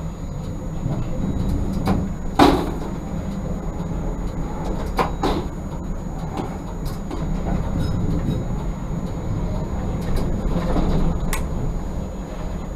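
Tram rolling slowly over curved track and switches, heard from inside the cab: a steady low rumble broken by sharp clacks and knocks as the wheels cross rail joints and points, the loudest about two and a half seconds in.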